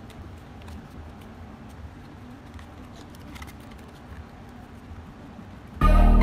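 Faint rustling and light taps of corrugated cardboard pieces being handled and folded by hand, over a low background rumble. Background music comes in abruptly near the end.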